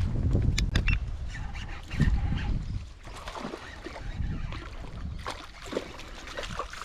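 A hooked traíra (wolf fish) splashing and thrashing at the water's surface on the line as it is brought in against the bank, with low wind rumble on the microphone.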